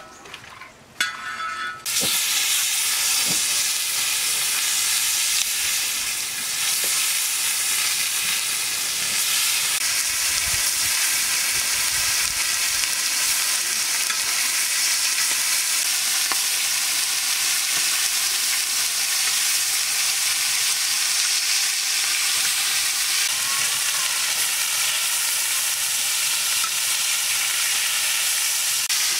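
Fish pieces frying in hot oil in a black iron wok, a steady loud sizzle that starts suddenly about two seconds in.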